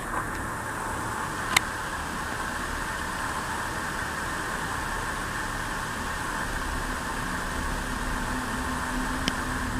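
Steady rushing background noise with no clear pitch, broken by two sharp clicks, one about one and a half seconds in and one near the end.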